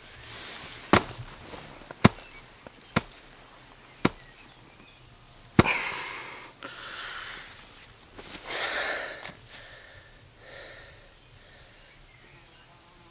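A fist-fight: five sharp blows land about a second apart, the last one the hardest, followed by heavy, gasping breaths.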